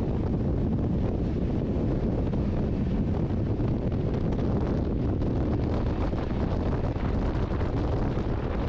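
Steady wind buffeting the microphone over the low rumble of an Indian Railways Rajdhani Express coach running at about 130 km/h, heard from its open door.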